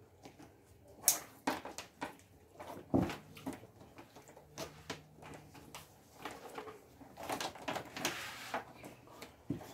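Small plastic clothespins clicking and clacking as they are handled and stacked on a table: a scattering of light, irregular clicks.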